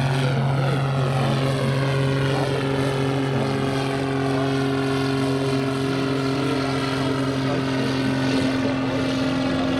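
Propeller-driven light aircraft flying close by under power: a loud, steady engine drone with a slowly sweeping whoosh in the higher sound.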